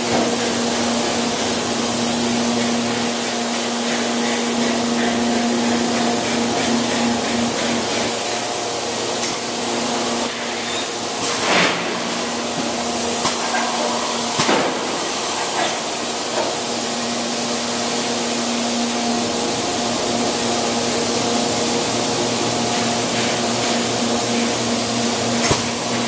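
Industrial machinery running: a steady loud hiss with a hum underneath, and a few sharp knocks.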